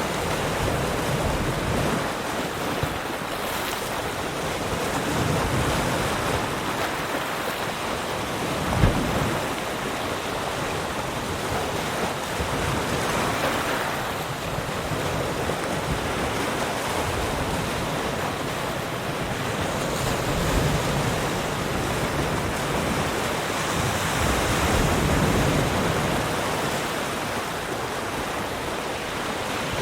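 Sea waves washing onto a shore in a continuous rushing surf, swelling and easing as each wave breaks, with a brief sharp splash about nine seconds in.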